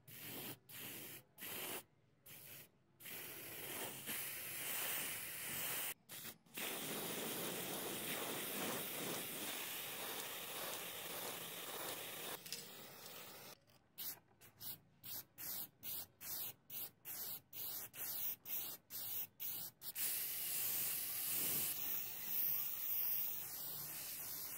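Aerosol spray paint can hissing as paint is sprayed: a few short bursts, a long steady pass, a run of quick bursts about two a second, then another long pass near the end.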